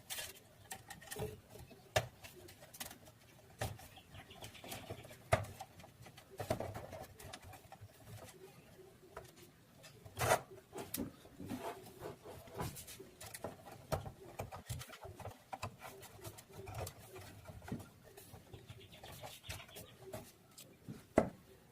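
Scattered small clicks and taps of wires and parts being handled while the audio input wires are connected to an amplifier channel board.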